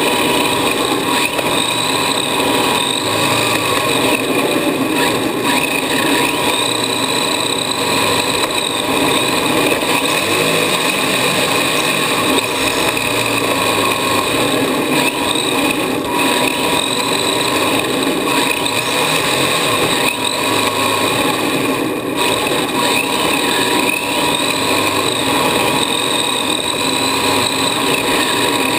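Radio-controlled drift car's motor and drivetrain whining continuously, the pitch rising and falling again and again with the throttle, heard from a camera mounted on the car itself.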